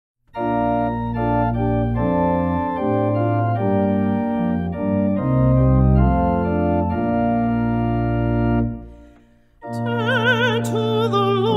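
Organ playing an introduction of sustained chords that dies away about nine seconds in. Near the end a singer with a wavering vibrato begins the responsorial psalm over the organ accompaniment.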